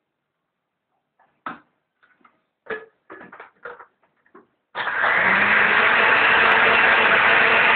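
A countertop blender is switched on about five seconds in and runs loudly and steadily, blending pisco sour ingredients (pisco, lime juice, egg white, sugar and ice). Before that come a few short knocks and clicks.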